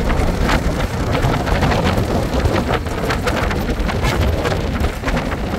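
Inside a moving coach bus: steady low rumble of the engine and road, with frequent small rattles and clicks throughout.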